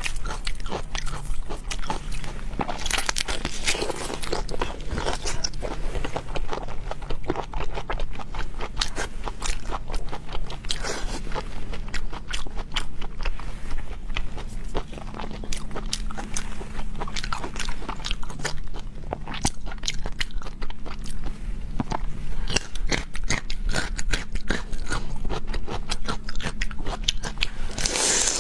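Close-miked eating of seafood: continual crunching, biting and chewing, with scraping and wet crackles, in an irregular stream of small clicks.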